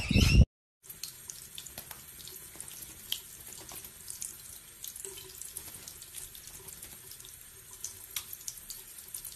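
Tap water running steadily into a bathroom sink, splashing over a budgerigar bathing under the stream and onto a hand, with small splashes and drips. In the first half second a louder sound cuts off abruptly at an edit.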